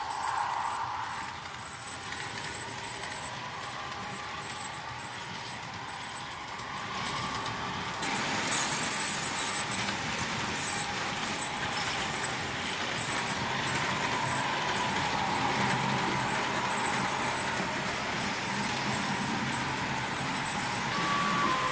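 Märklin H0 model trains running on the layout track: a steady rolling, mechanical running sound that gets louder about eight seconds in.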